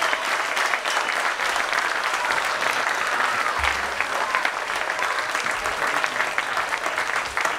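A large audience applauding steadily, a dense mass of clapping.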